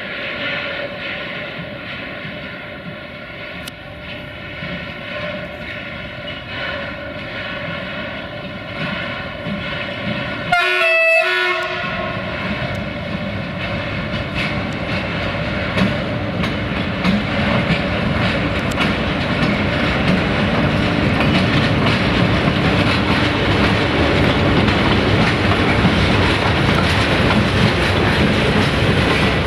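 Softronic Transmontana class 480 electric locomotive hauling a freight train, coming closer with a steady whine, then a short horn blast about eleven seconds in. After it, the wagons roll by with a rumble and clickety-clack of wheels over rail joints that grows steadily louder.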